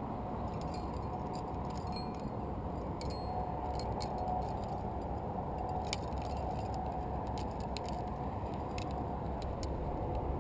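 Steady wind rumble on the microphone, with light metallic clinks of climbing gear: aluminium carabiners and quickdraws on a harness rack knocking together while a quickdraw is handled.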